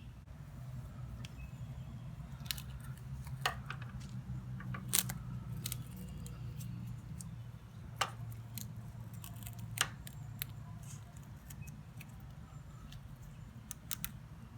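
Tape being pulled off a makeshift clutch lever on a motorcycle clutch arm: scattered sharp crackles and clicks at irregular intervals, over a steady low hum.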